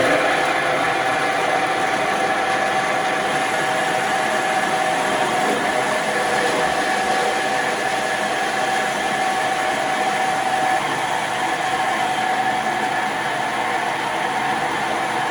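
Horizontal metal-cutting band saw running and cutting through an electric motor's armature rotor of copper windings on a steel shaft. It makes a steady grinding hiss with a steady whine over it.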